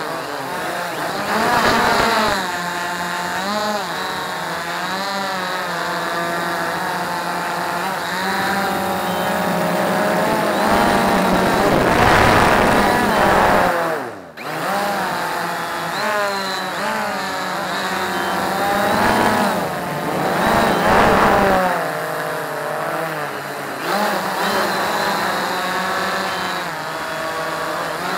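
Quantum Nova quadcopter's electric motors and propellers whining, heard up close from its onboard camera, the pitch rising and falling as the throttle changes. About fourteen seconds in the sound drops away for a moment, then comes straight back.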